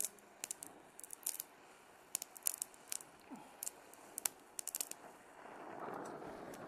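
Faint, irregular crackling and popping from a flux-coated aluminum rod melting into the weld puddle under a DHC2000 gas welding torch flame. A soft hiss swells near the end.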